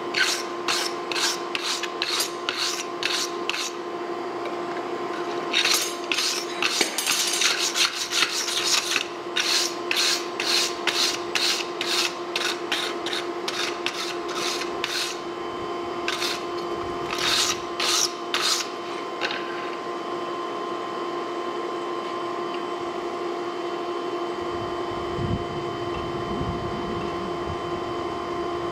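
Steel wire brush scrubbed hard back and forth over a forged spring-steel blade on the anvil, scouring off forge scale. The strokes come about two to three a second, in three spells with short pauses, and stop about twenty seconds in. A steady hum runs underneath.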